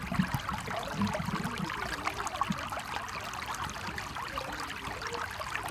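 Muddy floodwater flowing fast over stones in a shallow, swollen channel: a steady splashing rush of water.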